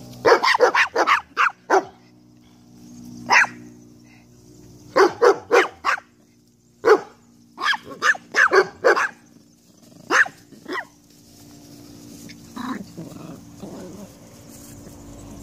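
A dog barking in quick runs of short barks with short pauses between them. The barking stops a few seconds before the end.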